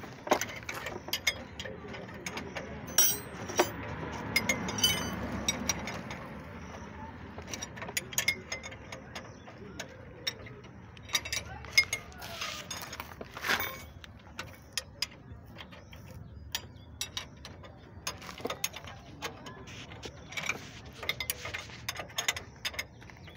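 A steel spanner clinking and clicking irregularly as it turns the nuts on a truck's leaf-spring U-bolts, with a rustling swell a few seconds in.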